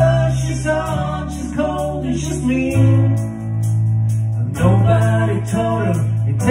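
A live country song: acoustic guitar and keyboard under male and female voices singing together, with a short break in the singing near the middle while low held notes carry on.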